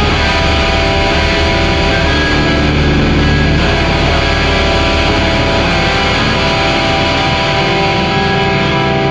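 Death-doom metal: loud, distorted electric guitars holding long sustained chords in a dense full-band mix.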